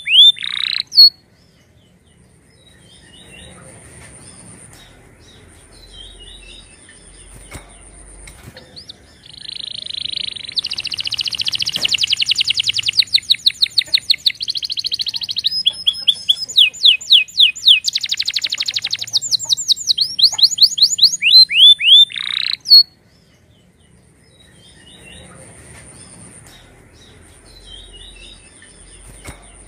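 Domestic canary singing: one long song of fast trills and rolls on repeated high notes, ending in a few sharp falling sweeps, with quieter twittering before and after it.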